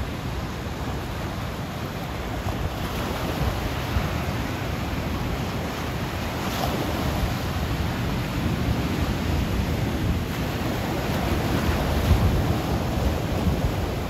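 Ocean surf washing into a rocky cove, waves breaking and spraying against the rocks, as a continuous rushing noise that grows a little louder near the end.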